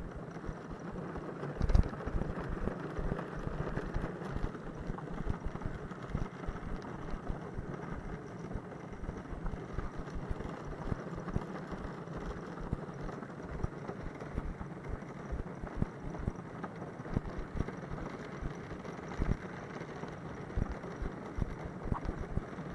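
Small wooden dog cart rattling as it rolls along an asphalt road, a continuous rolling noise with irregular knocks and thumps, a louder knock about two seconds in.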